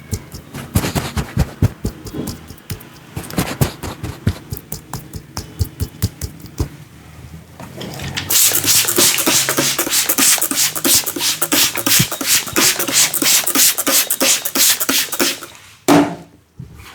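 Rapid rhythmic hand strikes of a percussive head massage, the barber's palms and fingers tapping and slapping in quick succession. The strikes come faster and brighter from about eight seconds in, and end with a single dull thump.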